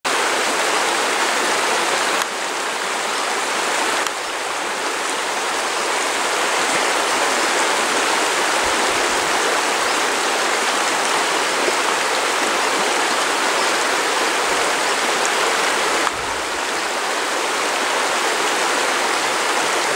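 Shallow river running over a stony bed: a steady rush of moving water, its level shifting slightly a few times.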